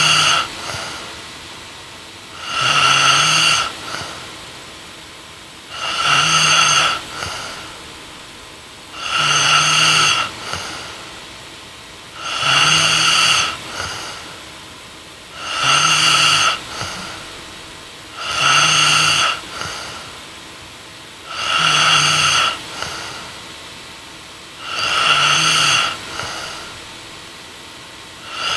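A young woman snoring in her sleep, in a steady rhythm of about one snore every three seconds. Each snore lasts about a second and is followed by a brief, softer sound.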